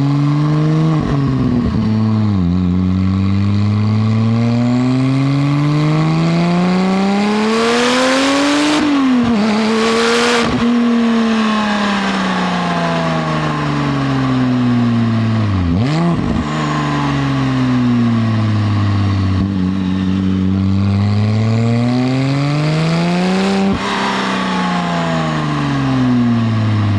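Porsche 996 Turbo's twin-turbo flat-six running through a SOUL valved exhaust with sport headers. It revs up hard several times, with sudden drops in pitch at gear changes and slower falls as it eases off. A loud rushing noise comes in around the highest rev peak, about a third of the way in.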